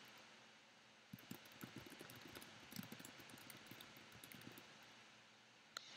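Faint typing on a computer keyboard, a quick run of irregular light key taps, followed near the end by one sharper click.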